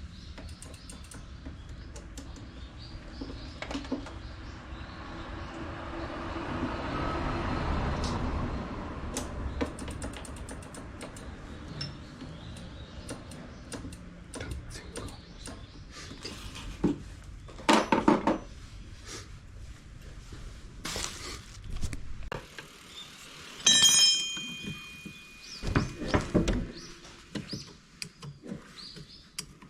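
Hand tools and small metal parts being handled during scooter brake work: scattered clicks and knocks, with one ringing metallic clink about two-thirds of the way in. A steady low background noise swells early on and then cuts off a little before the clink.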